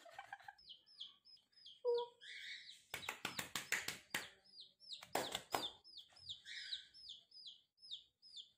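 Domestic chicken chicks peeping steadily: short, high, falling peeps about three a second. There is a brief low tone about two seconds in and clusters of clicking noise midway.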